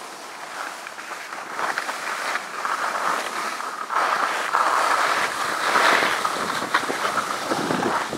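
Snowboard sliding and scraping over groomed snow as the board runs downhill, louder from about halfway through.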